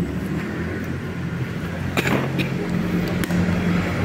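An engine running steadily at a low hum, with a couple of light knocks about two seconds in and again a little after three.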